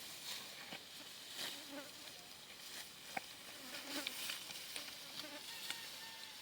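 Faint insect buzzing with scattered small clicks and taps.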